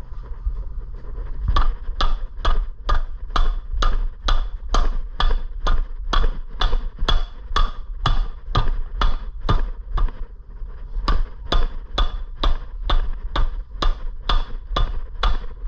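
Hammer blows on a Predator 212cc engine's stuck flywheel, striking hard to knock it off because no puller will fit. The blows are steady, about two to three a second, each with a short metallic ring, with a brief pause about ten seconds in, over a steady low hum.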